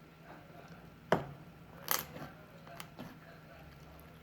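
Hard objects knocking and clinking as they are handled: a sharp knock about a second in, a brighter clink with a short ring a second later, then a fainter knock, over a low steady hum.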